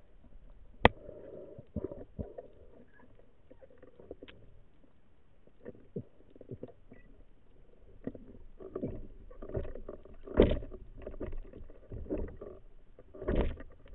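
Muffled underwater handling noise from a camera on a speargun as the diver grips its rubber band: scattered light clicks, one sharp click about a second in, and two louder dull thumps around ten seconds in and near the end.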